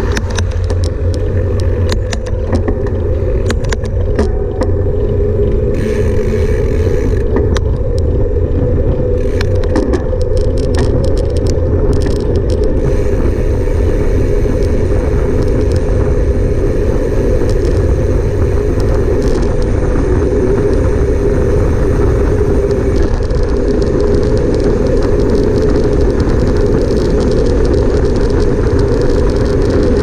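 Car driving on the road, a steady loud rumble of engine and tyre noise. Scattered light clicks come through in the first dozen seconds or so.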